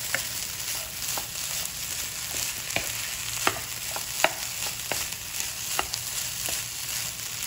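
Fried rice sizzling in a nonstick pan as a wooden spatula stirs and turns it. Sharp taps of the spatula against the pan come about once or twice a second over a steady frying hiss.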